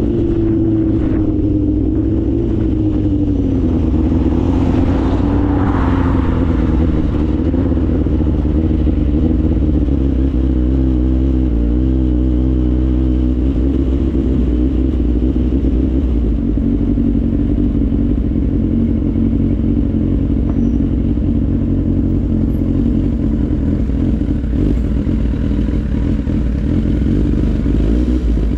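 Kawasaki Z800's inline-four engine running as the motorcycle is ridden, slowed and brought to a stop. The note dips a little in pitch in the first few seconds, then holds nearly steady.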